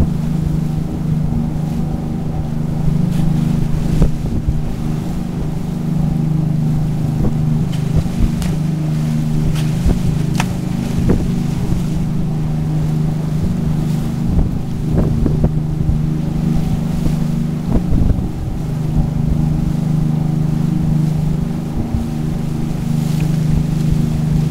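A trawler's inboard engine drones steadily under way, with water rushing and churning along the hull and wind on the microphone. A few short sharp sounds stand out over the drone.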